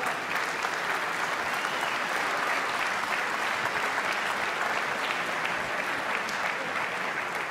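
Arena crowd applauding, a dense, steady clapping.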